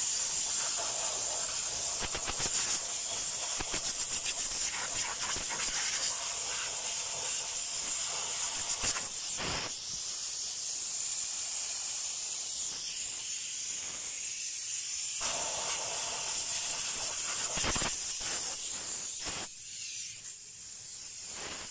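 Compressed air hissing from a handheld air blow gun, blowing dust out of the cabin blower motor and filter housing. The hiss is steady and high-pitched, wavering in strength, and a little quieter near the end.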